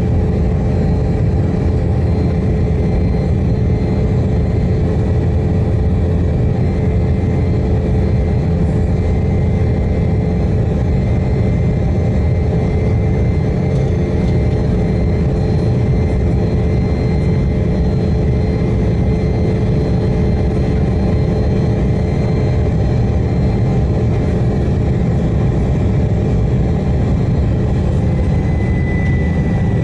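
Steady jet airliner cabin noise during the climb-out of an Embraer E190: a loud, even rumble from its GE CF34-10E turbofan engines and rushing air, with a steady hum above it.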